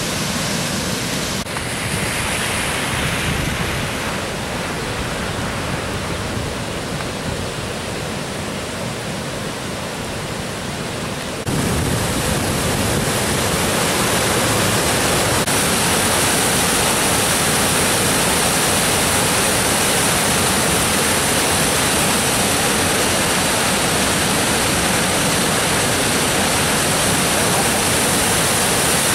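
Muddy floodwater pouring over a mill dam and churning below it: a steady rush of water. It gets louder and brighter about twelve seconds in.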